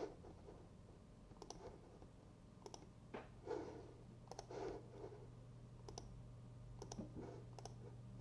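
Faint computer mouse clicks, about seven at irregular intervals, over a low steady hum.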